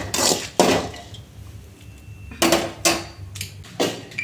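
Metal kitchen utensils clanking against pots and pans: two sharp knocks, a pause of about two seconds, then four more in quick succession.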